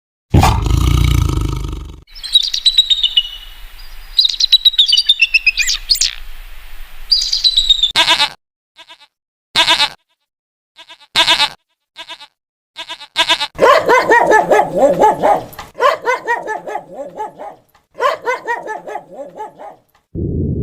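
A run of different animal calls: high chirping with falling notes, then a series of short separate calls, then longer wavering calls that repeat.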